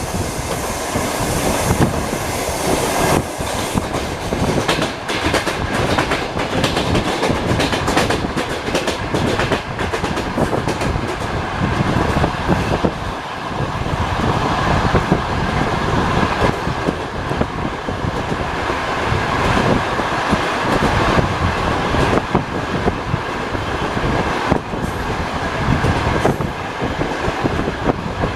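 Passenger train carriage wheels rolling over jointed rails, heard from inside the carriage: a continuous rumble broken by irregular clattering clicks as the wheels cross rail joints.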